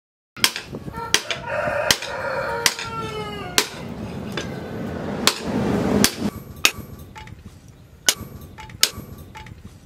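Hand hammer striking leaf-spring steel held in tongs on an anvil while forging a knife blade, sharp metallic blows a little under a second apart, about a dozen in all. A rooster crows in the background from about a second in, its call falling in pitch at the end.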